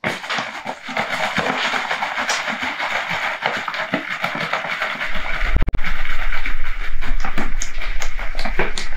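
Large plastic bottle of liquid pottery glaze being shaken hard, the glaze sloshing in quick continuous strokes to stir up glaze that has settled in the bottle. About halfway through a deeper rumble joins and the shaking gets louder.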